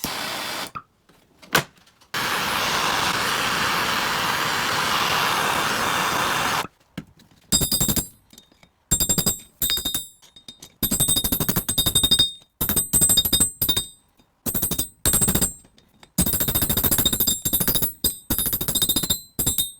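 A few seconds of steady hissing, then a power tool with a high whine started and stopped in a quick string of short bursts, as in restoration work on a cast iron vise.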